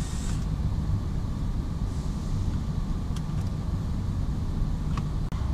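Steady low rumble of workshop background noise, with a few faint clicks from handling the car's plastic boot trim and a sharp click near the end.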